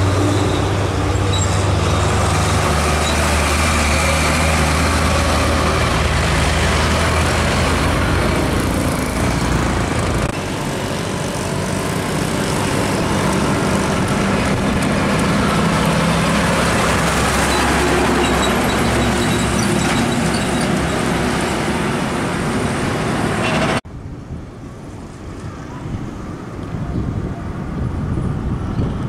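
Heavy diesel trucks driving past close by, their engines loud and low with the hum of road traffic. About 24 seconds in, the sound drops abruptly to a quieter truck engine that grows louder as the truck approaches.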